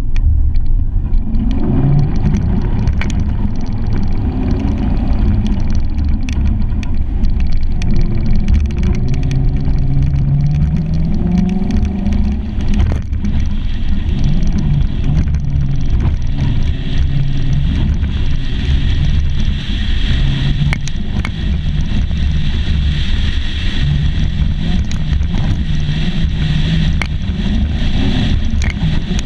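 Truck driving on a dirt track: the engine runs with its pitch rising and falling as it speeds up and eases off, over a heavy rumble from the road, with scattered sharp ticks.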